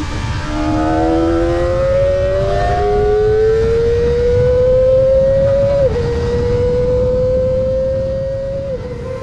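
Kawasaki ZX-25R's 250 cc inline-four engine at high revs: a high-pitched wail that climbs slowly in pitch, dipping briefly about six seconds in and again near the end.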